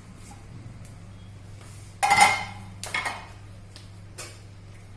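Metal pressure cooker lid being opened and handled: a loud ringing clang about two seconds in, a smaller knock a second later and a light tap near the end. The cooker's pressure has fully gone down, so the lid comes off without any steam hiss.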